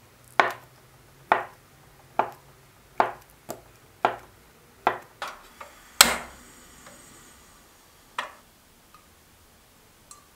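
Cleaver blade chopping through a slab of Spam and knocking on a wooden cutting board, about nine strikes in the first six seconds. About six seconds in, a portable gas stove's igniter gives a loud sharp click as the burner lights, followed by a faint hiss, then a single knock near the end.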